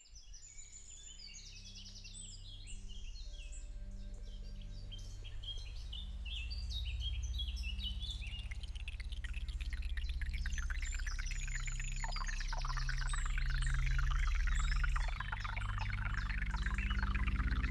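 Forest soundscape of many birds chirping over a low, steady drone of held tones. The whole swells in loudness, and from about halfway the chirping thickens into a dense chattering texture.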